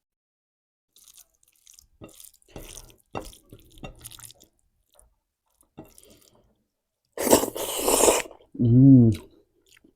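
Close-up eating sounds: faint wet smacking and small clicks of eating rice and curry, then a loud slurp lasting about a second, seven seconds in, followed by a short hummed 'mm'.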